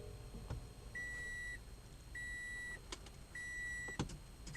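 Toyota Prius C's in-cabin warning chime beeping, four even beeps of one high tone about a second apart, with a few faint clicks. The car's electrics are live again after a fresh 12-volt battery went in.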